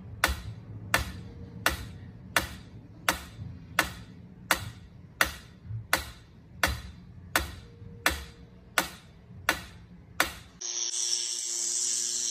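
Mechanical pendulum metronome ticking steadily, one sharp tick about every three quarters of a second. About ten and a half seconds in the ticking stops at a cut, giving way to a steady hiss with a faint hum.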